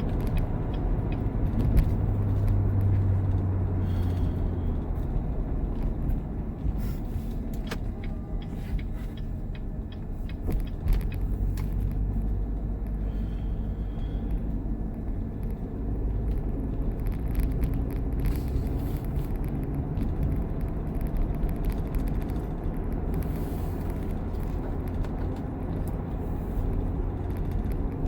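Steady low rumble of the C7 Corvette's V8 and the car moving, heard from inside the cabin, with a few light clicks.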